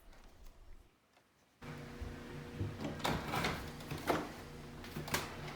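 Music ends, then after a second of near silence a steady low room hum with a few soft knocks or thumps about a second apart.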